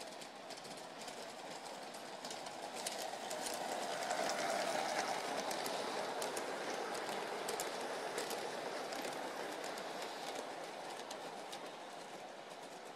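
G-gauge model train running on brass track, with a steady rolling rumble of wheels and motor and frequent clicks as the wheels cross rail joints. It grows louder as it approaches, is loudest as it passes close by about five seconds in, and fades as it runs away.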